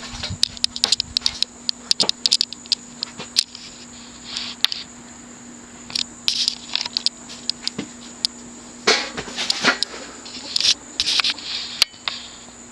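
SMC KC52 ceiling fan's large stamped-steel spinner motor running at medium-high speed with a steady hum, more hum than a typical SMC motor. Scattered irregular clicks and short scrapes sound over it.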